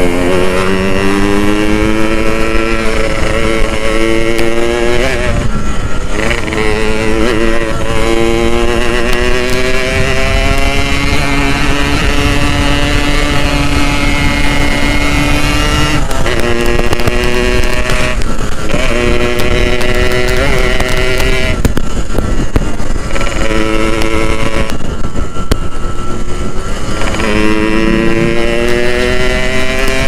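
Two-stroke Yamaha motorcycle engine under way. Its revs climb and fall back again and again as the rider works the throttle and gears, and hold steady for a few seconds midway.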